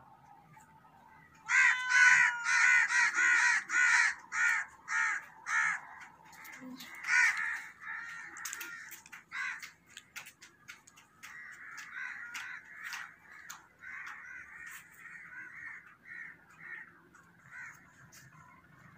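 Loud, harsh animal calls in a rapid series, about two a second, starting about a second and a half in and fading out a few seconds later; fainter calls of the same kind come again in the second half.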